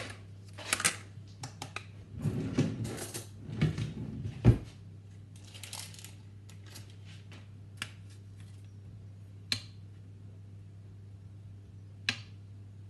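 A plastic Stork margarine tub being opened: the lid clicks and knocks as it is pulled off, and the seal is peeled with a crackly rustle, ending in a knock about four and a half seconds in, followed by a few light clicks.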